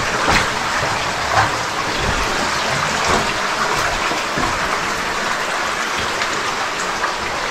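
Small underground creek running over rocks in a cave passage, a steady rush of water. A few brief knocks sound over it.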